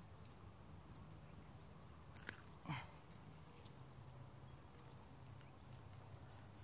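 Near silence: faint pond-shore ambience with a thin, steady high whine, broken a little past two seconds in by a single click and then a short sound that falls in pitch.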